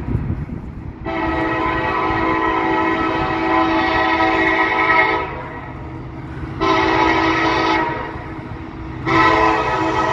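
Air horn of a CSX SD70MAC locomotive, a multi-note chord, sounding one long blast, then a short one, then another long one that begins about nine seconds in.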